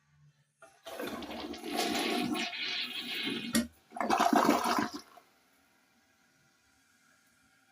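Toilet with newly replaced tank parts flushing: a loud rush of water for about four seconds, broken by a sharp click partway through, then stopping abruptly about five seconds in.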